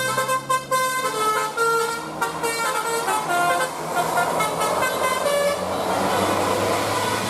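A tour bus's telolet basuri musical horn plays a tune of short stepped notes over the bus's diesel engine running. The engine and road noise grow louder in the second half as the horn notes thin out.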